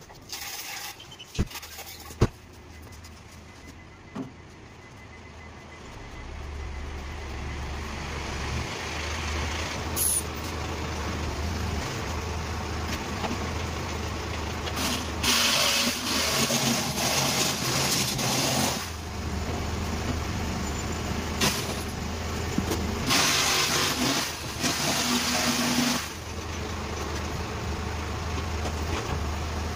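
A handheld power tool working a plywood sheet, running loudly in two stretches of a few seconds each in the second half, over a steady low hum. A couple of sharp knocks near the start.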